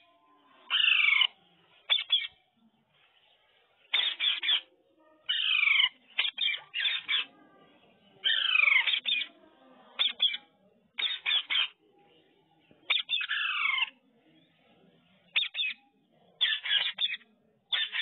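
Indian ringneck parakeets calling in bursts with short quiet gaps between. Runs of quick, sharp chirps alternate with about four louder, harsh squawks that slide down in pitch.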